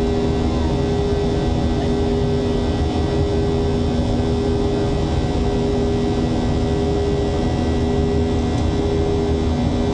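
Steady drone of a Boeing 737-800's CFM56 jet engines: an even rush of noise with two steady low hum tones that hold level throughout.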